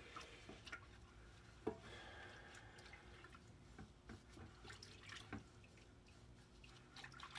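Faint sloshing and dripping of degreaser solution in a plastic bucket as gloved hands work an engine piston in it, with a few small knocks.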